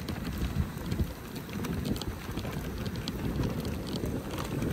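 Dog sled running over a packed snow trail behind a husky team: a steady, rough scraping and crackling of the runners on the snow.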